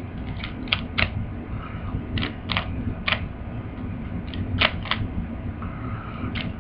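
A plastic twisty puzzle being turned by hand: irregular sharp clicks as its layers snap round, sometimes two or three close together, then pauses. The owner thinks the puzzle is not lubricated.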